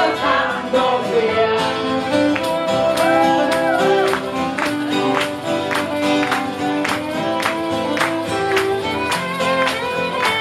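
Live folk band playing: a fiddle leads over strummed acoustic guitar, and a frame drum keeps a steady beat of about two strikes a second. The fiddle slides in pitch a few seconds in.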